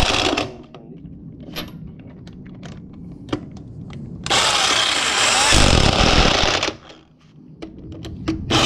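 Power tool running in loud bursts during suspension work: a short burst at the start, a long one of about two and a half seconds in the middle that turns to a deeper rattle partway through, and another starting near the end, with small clicks and knocks of parts being handled in between.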